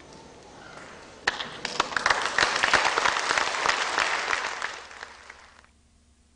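Audience applauding, starting suddenly about a second in, then fading and cutting off abruptly near the end.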